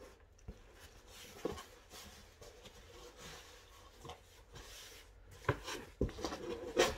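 Cardboard shipping box handled and its flaps folded down: light rubbing and scraping of cardboard with a few soft knocks, the loudest ones near the end.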